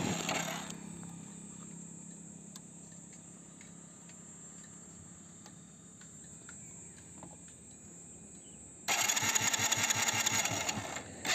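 Hero Splendor iSmart's electric starter cranking the engine, which turns over without catching: with the engine hot, no spark reaches the plug. The cranking stops within the first second, then starts again about nine seconds in, with a brief break near the end.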